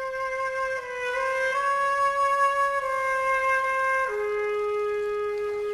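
A solo wind instrument, flute-like, plays a slow melody of long held notes that move by small steps. About four seconds in it drops to a lower note and holds it.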